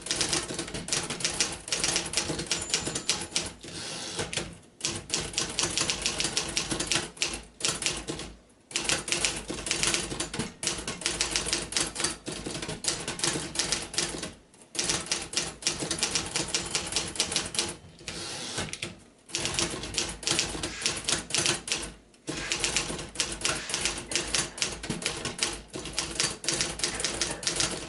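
1956 Remington Quiet-Riter portable manual typewriter being typed on: a fast, steady run of keystrokes broken by a few brief pauses.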